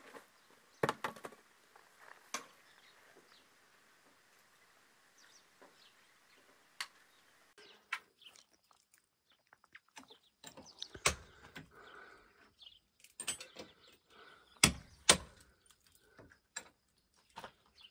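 Scattered clinks and knocks of hand work on a building site, with a few louder knocks in the second half.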